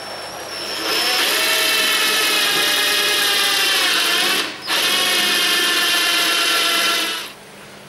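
Electric hand drill with a large twist bit boring into wood: the motor winds up, whines steadily under load, cuts out for a moment about halfway, then runs again and stops shortly before the end.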